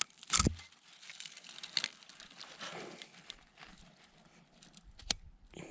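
Fine dry spruce twigs and kindling being handled and laid for a fire: crinkly snapping and scattered small clicks, with a heavier knock of wood about half a second in and another sharp click near the end.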